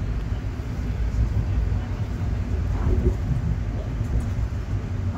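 Steady low rumble of a passenger train running along the track, heard from inside the car.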